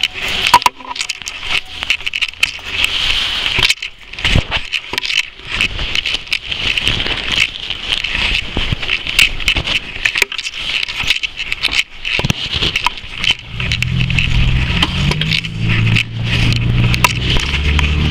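Clattering handling noise and footsteps as a handheld camera is carried through a room and out a door onto a street. A vehicle engine runs close by over the last few seconds.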